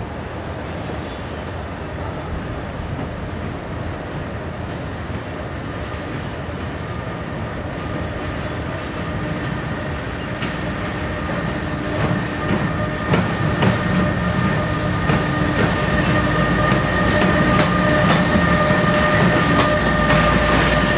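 Freight train of tank wagons approaching and passing, hauled by a Bombardier TRAXX class 186 electric locomotive with a second locomotive behind it. A steady rumble grows louder. From about ten seconds in, a drone of several steady tones and a run of wheel clicks over rail joints and points come in as the locomotives draw level.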